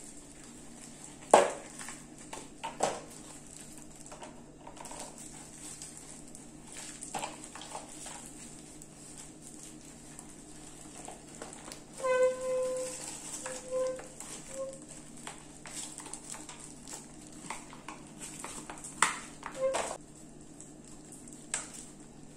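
Thin plastic acetate egg mold clicking and crackling as it is flexed and worked free of a set chocolate egg shell, with a few sharp snaps about a second in and again near the end.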